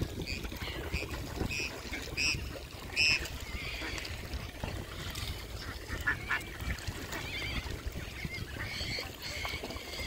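Waterfowl calling: short, high-pitched calls repeated several times in the first three seconds and again near the end, over a steady low background rumble.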